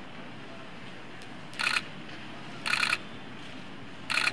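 Three short bursts of rapid-fire SLR camera shutter clicks in continuous shooting, over a steady background hum.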